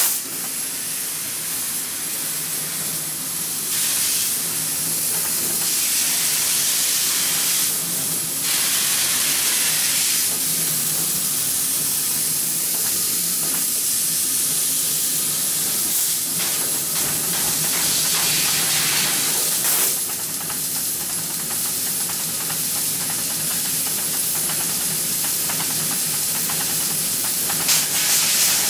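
Mazak Optiplex 3015 fiber laser cutting 0.8 mm stainless steel with nitrogen assist gas: a loud, steady hiss of gas and cut that briefly dips and swells several times. A faint, steady high whine runs over it.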